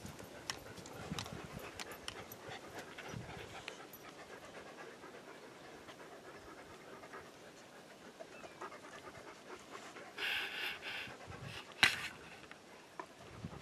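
Dogs panting close by, with scattered light clicks and rustles. About ten seconds in comes a brief high-pitched call lasting under a second, then a single sharp click, the loudest sound, near the end.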